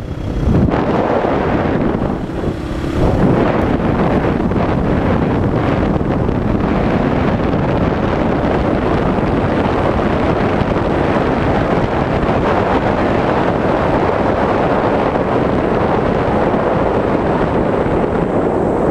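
Wind buffeting the microphone of a rider on a moving Yamaha Serow 225 trail motorcycle, with the bike's engine and road noise mixed in underneath. The noise is steady, with a short drop in level about two seconds in.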